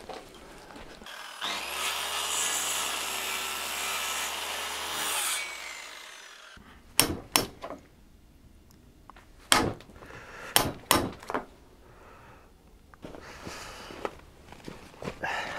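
An electric saw cuts into a wooden beam for about four seconds, then dies away. It is followed by a run of sharp knocks and cracks as a chisel breaks out the wood between the saw cuts to form a notch.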